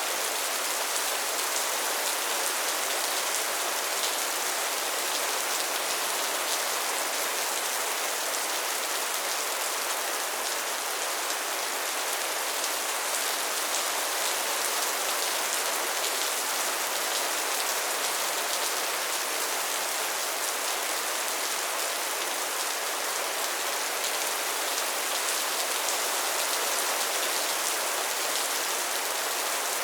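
Steady rain falling: an even hiss of many drops that holds at the same level throughout, with little low rumble.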